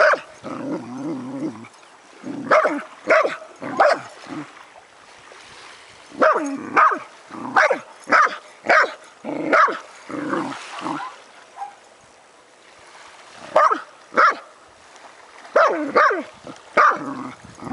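Potcake dog barking and yipping at a crab in the sand: short, high barks in clusters of two to six, with pauses of a few seconds between, and a lower drawn-out sound in the first second and a half.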